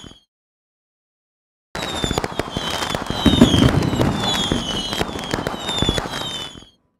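Fireworks sound effect: dense crackling pops and bangs under short falling whistles, about two a second. It cuts off just after the start, comes back in abruptly about two seconds in, and stops suddenly shortly before the end.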